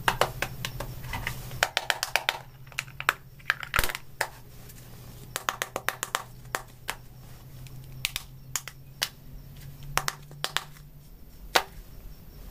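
Paper and cardboard mock-up phones being handled on a tabletop: scattered sharp clicks, taps and crinkles as the paper covers are lifted off and the pieces are moved and set down. A low steady hum runs underneath and stops near the end.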